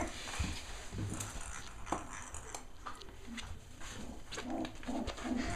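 Six-week-old Cavalier King Charles Spaniel puppies at play, making short, low vocal sounds that come more often near the end. Scattered sharp clicks run through it.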